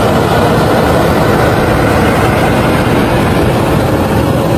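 Fire engine running its pump while its deck gun shoots a large water jet: a loud, steady rush of engine noise and spray.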